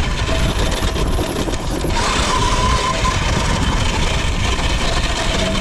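Electric dirt bike being ridden: a thin motor whine that wavers up and down in pitch over a steady, loud rushing noise.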